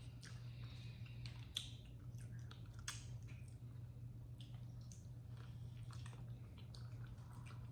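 Close-miked chewing: irregular wet mouth clicks and squishy bites of food, over a steady low hum.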